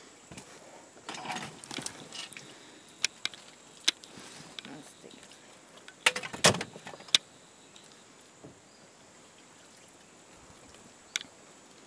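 Old tin toys being handled and set into a plastic tote: scattered metal clinks and knocks. The loudest is a quick cluster about six seconds in.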